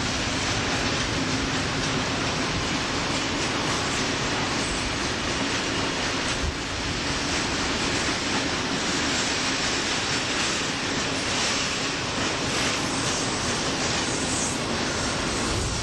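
Mixed freight train rolling slowly past, its wagons' wheels clicking over the rail joints, over a steady low hum.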